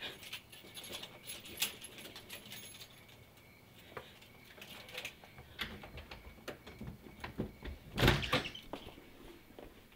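Scattered light clicks and knocks of small handling sounds, with a louder thump about eight seconds in.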